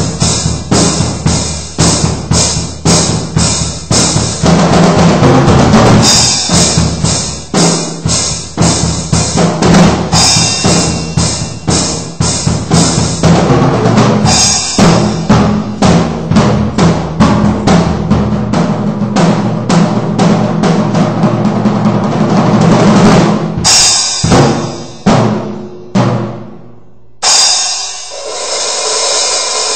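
Drum kit played loosely as a sound test: rapid bass drum, snare and tom strokes with cymbal wash. Near the end the playing thins to a few single hits, then a loud crash rings out.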